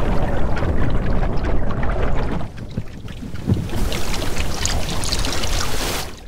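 Wind buffeting the microphone with rushing, splashing water. The rumble eases about two and a half seconds in, and a crackling spray of water follows.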